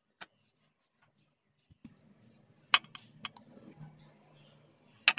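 Wooden rolling pin working dough on a wooden board: a handful of sharp clacks, the loudest about three seconds in and another near the end, over a faint low rumble of rolling.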